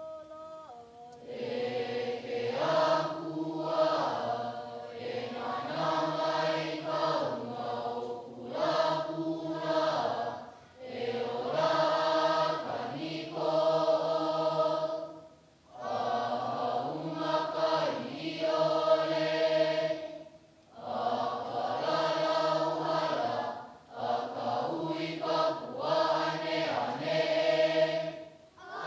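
A large group of children's voices chanting in unison on held notes, in long phrases broken by short pauses for breath every few seconds.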